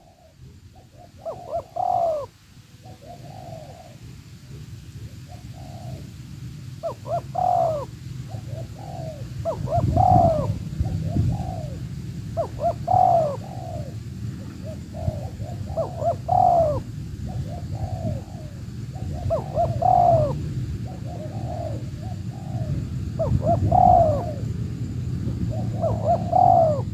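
Spotted doves cooing in repeated phrases of several soft notes, one phrase about every three seconds, each ending on a stronger note. A steady low rumble sits underneath.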